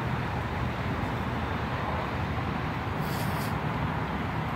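Steady rumble of road traffic, with a short hiss about three seconds in.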